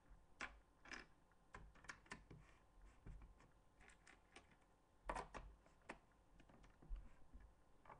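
Plastic Lego bricks clicking and snapping as pieces are pressed onto a brick build and handled, faint irregular clicks with a louder cluster about five seconds in.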